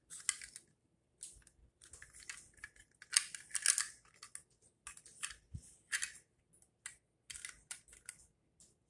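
Small hard-plastic toy car parts handled and pressed together: irregular clicks and scrapes of plastic on plastic, busiest about three seconds in.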